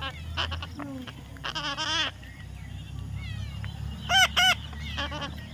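Parrot calling in a string of short, arching squawks, with a wavering call about a second and a half in and the loudest pair about four seconds in.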